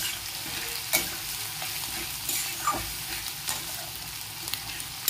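Sliced onions sizzling in hot mustard oil in an aluminium kadhai, stirred with a spatula that scrapes and knocks against the pan about once a second.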